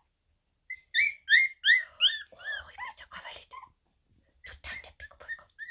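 Two-and-a-half-week-old Havanese puppy whimpering in a run of short, high squeaks, about three a second, each rising and falling in pitch. The squeaks are loudest at first, pause briefly about two-thirds of the way through, then start again.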